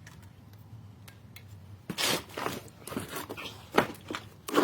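Drum brake parts and hand tools being handled: a run of short metal scrapes and clinks that starts about two seconds in, after a quieter stretch with a faint low hum.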